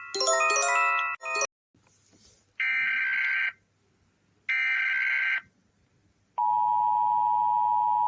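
A short chiming jingle ends about a second and a half in. It is followed by two screeching Emergency Alert System data bursts (SAME header tones) of about a second each, a second apart. Then comes the steady two-tone EAS attention signal, which cuts off suddenly near the end.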